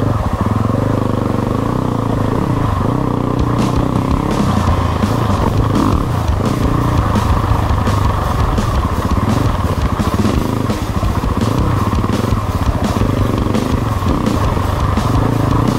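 Dirt bike engines running on a trail ride, the pitch rising and falling as the throttle is worked, with a steady rattle of small clicks through much of it.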